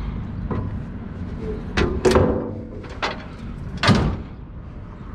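Metal scrap clanking and banging as it is handled: about five sharp knocks, the loudest one ringing briefly like struck sheet metal.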